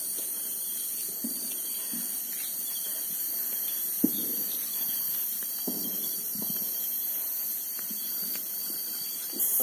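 Steady high-pitched chirring of night insects, with faint rustling and footsteps of people moving through tall grass and a single sharp click about four seconds in.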